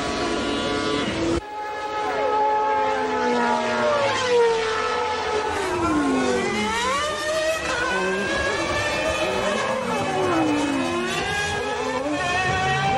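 1991 Formula One cars' naturally aspirated 3.5-litre engines at high revs, the pitch climbing and falling through gear changes and corners, with more than one car heard at once. The sound changes suddenly about a second and a half in.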